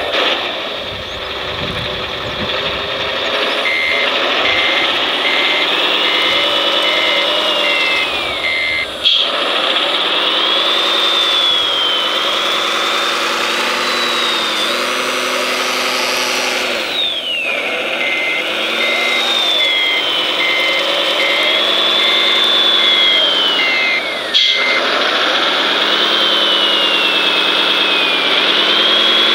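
Sound of a radio-controlled scale construction vehicle: a simulated diesel engine revving up and down with a high whine rising and falling alongside. Reversing beeps come in two runs of several seconds, about two beeps a second.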